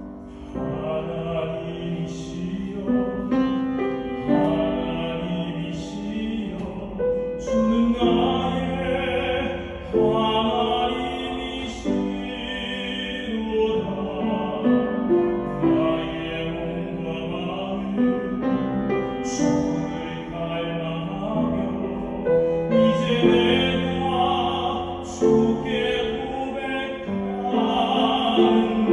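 A solo singer in a classical, operatic style singing a Korean praise song, accompanied by piano.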